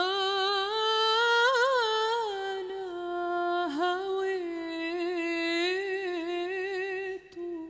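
A woman's solo voice singing unaccompanied: one long wordless phrase held mostly on a single note, with quick wavering ornaments near the start and a brief dip in pitch about halfway. It stops shortly before the end.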